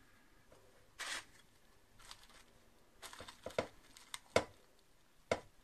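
Plastic cling film rustling and crinkling, with a few sharp clicks and taps as butter biscuits are pressed into a film-lined loaf tin. A brief rustle comes about a second in, and a cluster of clicks from about three seconds on, the last single clicks near the end.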